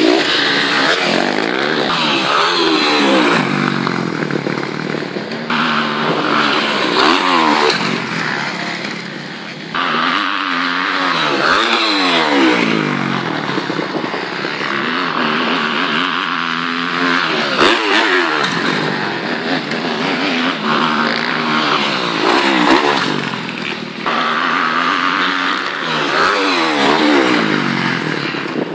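Motocross dirt bike engines revving hard as the bikes ride past on a dirt track, the pitch climbing and dropping back again and again as they accelerate and ease off.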